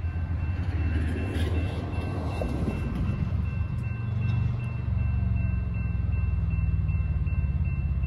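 Grade crossing warning bell ringing steadily while the crossing is activated for an approaching train. A low rumble builds from about halfway through, the approaching freight's diesel locomotives.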